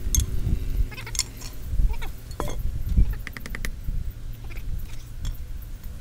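Scattered knocks and scuffs of work on a stone door post: a spirit level set against the stone and boots shifting on loose soil. About three seconds in comes a short, rapid chattering call.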